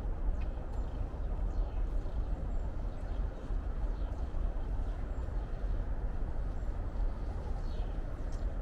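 Outdoor ambience in a forest: a steady low rumble, with faint high bird chirps now and then.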